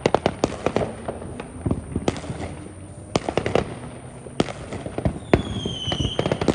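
Fireworks and firecrackers going off, an irregular run of sharp pops and bangs, with a short falling whistle near the end.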